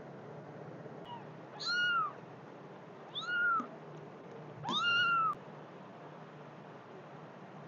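Young kitten meowing three times, high-pitched calls that each rise and then fall, about a second and a half apart.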